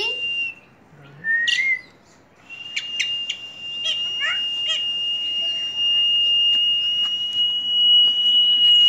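Caged common myna giving a few short chirps and calls, one rising call about a second and a half in, then a quick series of brief calls. Under them runs a steady high whistling tone that breaks off for about two seconds near the start and then holds, loudest near the end.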